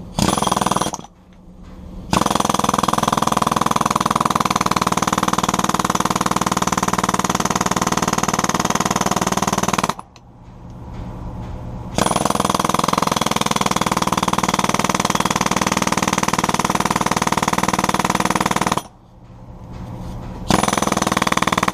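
Jackhammer breaking into fiber-reinforced concrete, running in long bursts of several seconds with short pauses between, after a brief first burst at the start.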